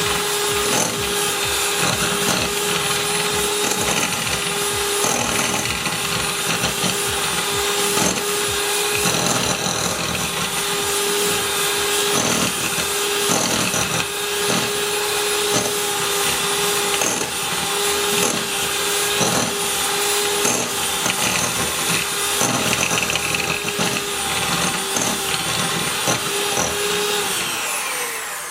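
Electric hand mixer running steadily, its beaters creaming butter in a mixing bowl with an uneven rattle, then winding down near the end.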